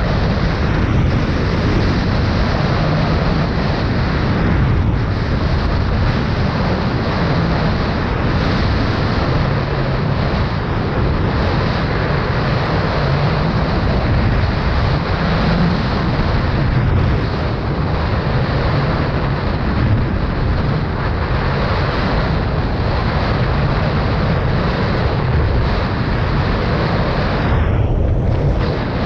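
Wind rushing over the microphone of a camera worn while going fast down a ski slope, with the hiss of sliding on packed snow: a loud, steady rush with no letup.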